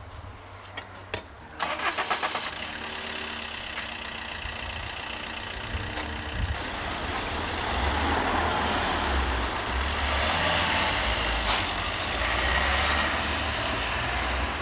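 An engine starts about a second and a half in and then runs steadily, growing louder from about eight seconds in.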